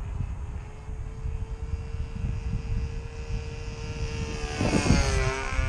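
Two-stroke Evolution 60 glow engine of a model airplane in flight, droning steadily, then growing loud as the plane passes close near the end, its pitch dropping as it goes by. The pilot judges the engine to be still running a little rich.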